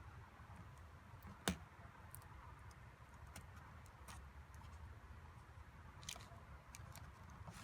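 Faint, scattered small clicks and taps of fingers working a laptop display cable connector loose from the back of an LCD panel, with one sharper click about a second and a half in.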